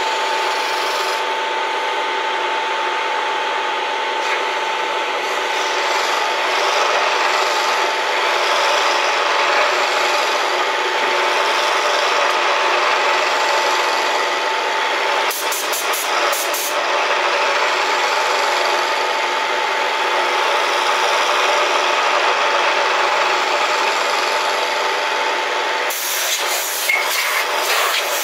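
CNC-converted Bridgeport milling machine cutting a workpiece: a steady, rough cutting noise over a constant whine. The whine drops out near the end among a few clicks.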